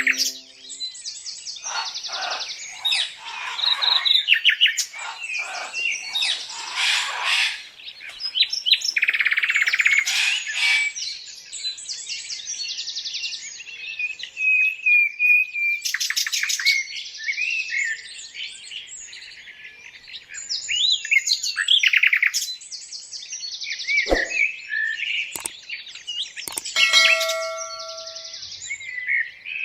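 Birdsong: several birds chirping and trilling in quick, high, overlapping calls, with short lulls between bursts.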